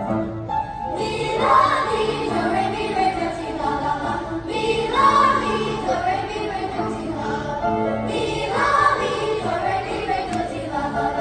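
Elementary school children's choir singing with accompaniment, phrases swelling about every three and a half seconds.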